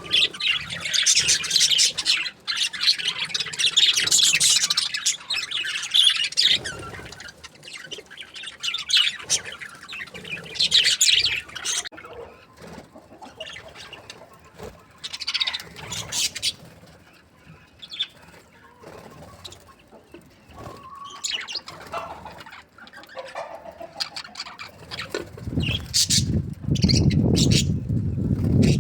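Budgerigars chirping and chattering: a dense run of high chirps for the first dozen seconds, then sparser single calls. A low rumbling noise comes in for a few seconds near the end.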